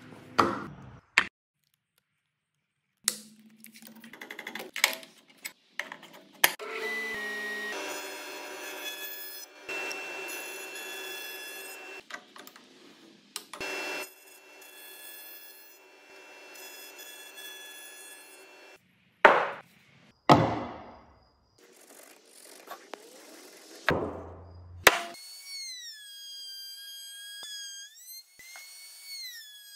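A montage of workshop sounds with abrupt cuts: sharp wooden knocks from handling pine blocks, and a dovetail bit running and cutting through a pine block with a steady whine.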